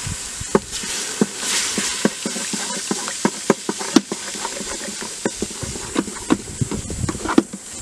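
A wooden stick stirring flour into hot water in an old electric deep fryer's metal pot, knocking against the pot in light, irregular taps. Under the taps the heating water sizzles faintly.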